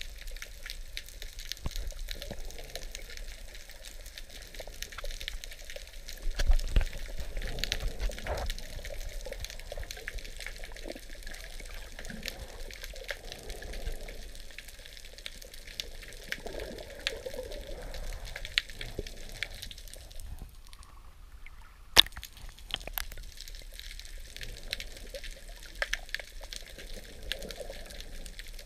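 Underwater water noise with scattered clicks and crackles throughout. There is a low thump about six seconds in, and one sharp click about three-quarters of the way through.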